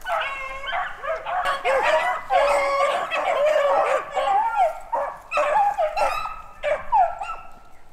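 A pack of beagles baying on a rabbit's trail: several dogs calling at once, long rising-and-falling howls mixed with shorter barks.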